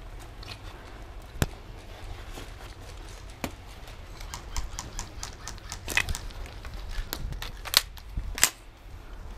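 A player's footsteps and movement give a low rumble, with scattered sharp cracks from airsoft guns and BB impacts at irregular intervals. Two of the cracks, near the end, are the loudest.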